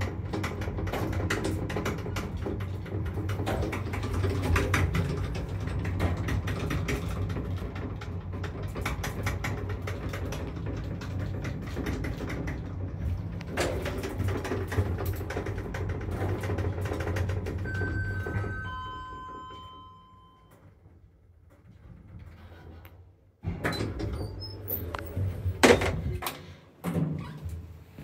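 A 2005-built passenger lift car travelling, with a steady motor hum and small rattles. The car comes to a stop with a short descending three-note arrival chime, and a few seconds later the doors slide open with clunks and knocks.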